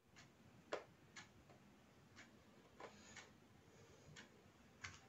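Battery quartz wall-clock movement ticking faintly, about once a second, with a few extra clicks in between from the movement being handled.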